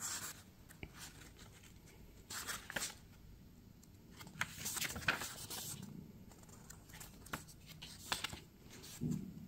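Pages of a paper instruction booklet being turned and rustled by hand, in several short bursts, with a soft low bump near the end.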